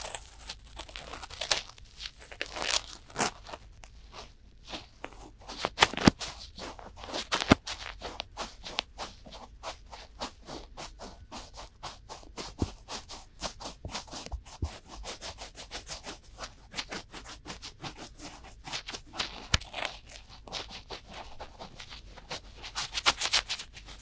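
Cotton swabs rubbing and scraping inside both ears of a binaural microphone at once: a fast run of scratchy strokes, several a second, with a few louder scrapes about six and seven and a half seconds in.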